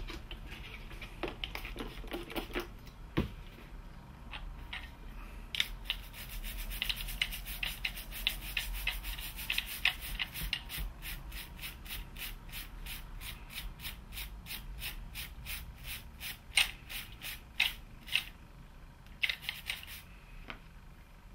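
Small stiff-bristled brush scrubbing flux residue off the soldered circuit board of an ABS module's electronics section, in quick back-and-forth strokes. A few handling knocks come first, then from about five seconds in a dense run of rapid scrubbing strokes, several a second, lasting about ten seconds, with a few separate strokes near the end.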